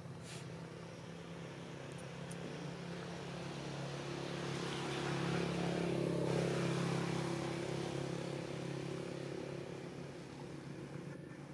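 A motor vehicle's engine passing by: a steady drone that swells to its loudest about six seconds in, then fades away.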